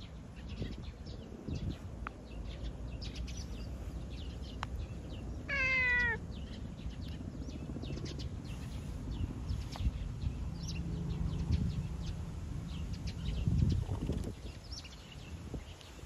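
An orange-and-white domestic cat gives one short meow, close to the microphone, about five and a half seconds in. Faint rustling and handling noise runs underneath.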